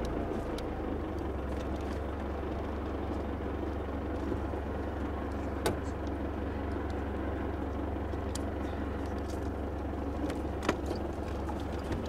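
A vehicle driving, with a steady engine and road rumble. A few short sharp clicks or knocks come through, the clearest about halfway through and another near the end.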